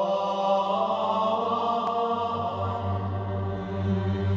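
Background music: a sustained, drone-like chant of held tones.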